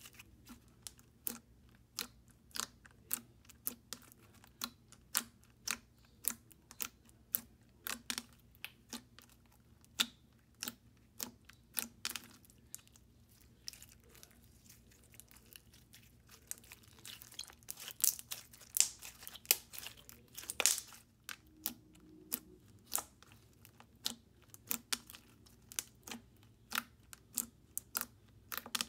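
Ultra thick, glossy foam-bead slime being pressed and stretched by hand, giving a steady run of sharp clicks and pops, about one or two a second. They come thicker and louder a little over halfway through.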